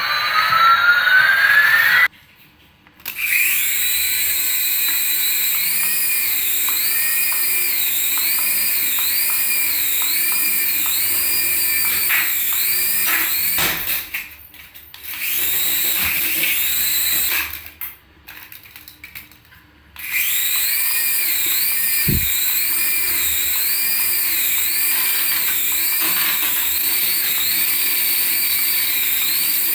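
Small electric motor of a remote-control toy whining at high pitch, its pitch wavering up and down about once a second. It cuts out briefly three times, about two seconds in, around the middle, and for a couple of seconds later on, then starts again.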